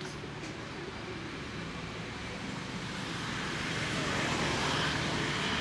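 Steady outdoor background noise with a faint low hum, growing louder about halfway through.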